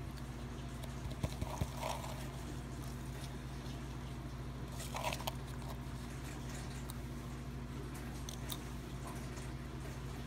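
Panther chameleon biting and chewing a superworm: a few faint crunching clicks, clustered about a second and a half in and again about five seconds in, over a steady low hum.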